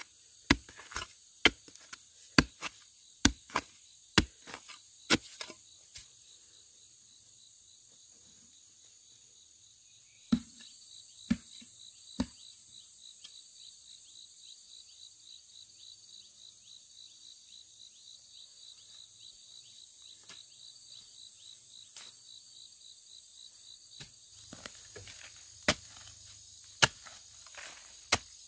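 Repeated sharp chopping strikes, about two a second for the first five seconds, a few more after a pause, and another handful near the end. In between, insects keep up a fast, pulsing, high trill.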